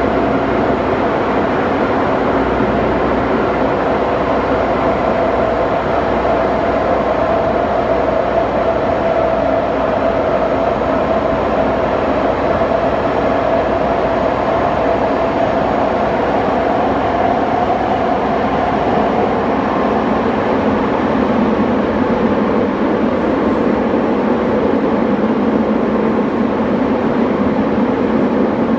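Saitama Railway 2000 series electric train running through a tunnel, heard from inside the car: a steady loud rumble of wheels on rail echoing off the tunnel walls. A steady whine rides on top and fades about two-thirds of the way through.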